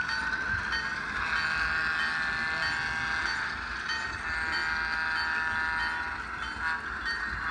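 Sound decoder of a Bachmann HO-scale ALCO S-4 diesel switcher playing its engine sound through the model's small speaker, rising in pitch at the start and then holding steady as it pulls. A locomotive bell rings over it about twice a second.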